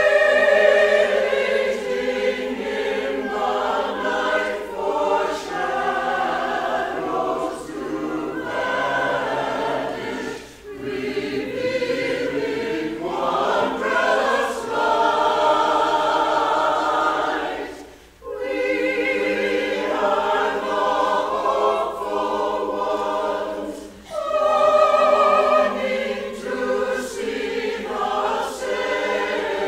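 A cappella choir singing in harmony without accompaniment. The singing goes in phrases, with short breaks between them and a deeper pause about 18 seconds in.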